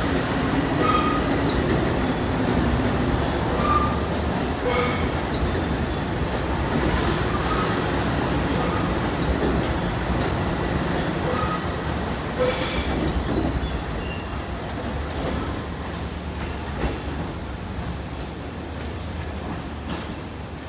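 Long Island Rail Road electric multiple-unit commuter train running past a station platform, with steady wheel-and-rail noise, a few faint wheel squeals and sharp clicks. The sound fades over the last several seconds as the train clears the platform.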